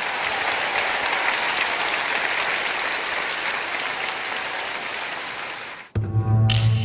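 Audience applauding steadily. About six seconds in the applause cuts off suddenly and music with a deep bass note starts.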